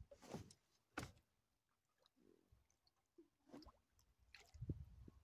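Near silence with a few faint drips and small splashes of water, as a fishing line is handled by hand over the side of a boat.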